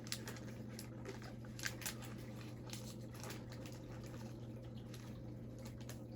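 Faint clicks and rustles of trading cards and pack wrappers being handled, over a steady low hum.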